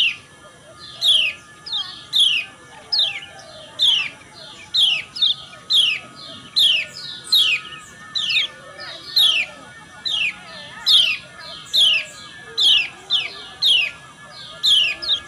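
Kecial kuning, a small yellow white-eye, giving sharp, steeply falling 'ciak' calls over and over, often in quick pairs, about one or two a second: the female's call, used to stir male kecial kuning to sing.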